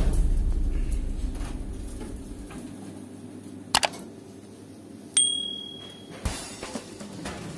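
Background music fading out, then a single click followed about a second and a half later by a bright bell ding: the sound effect of a subscribe-button and notification-bell animation.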